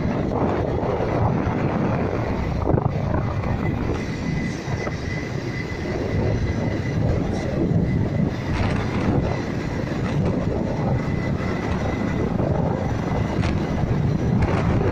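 Motorcycle riding along a road: a steady rush of engine and wind noise, with a thin steady high whine through most of it.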